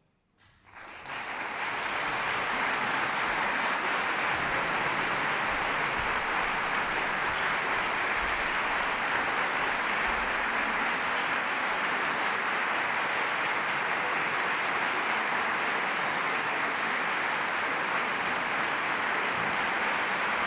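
Audience applause breaking out suddenly about half a second in, just after the piece's final chord has died away, then continuing as a steady, dense clapping.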